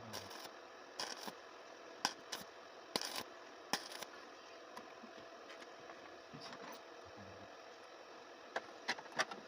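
Hand tools clicking and clinking against metal parts: a dozen or so sharp clicks and short knocks, some with a brief scrape. They cluster in the first four seconds and again near the end.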